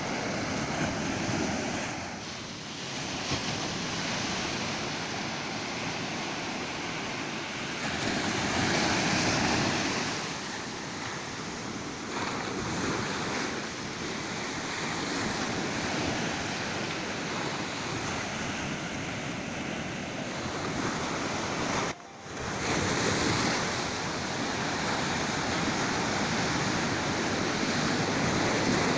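Ocean surf washing onto a beach: a steady rush of breaking waves that swells louder as bigger waves break, with a brief dropout about two-thirds of the way through.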